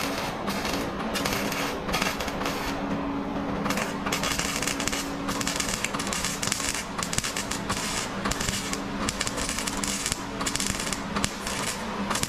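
MIG welder crackling as it welds a new sheet-metal rocker panel onto a car body, in a run of short bursts broken by brief pauses.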